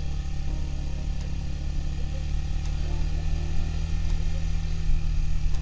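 Sport motorcycle engine running at a steady, moderate pace while riding, with no revving or gear changes.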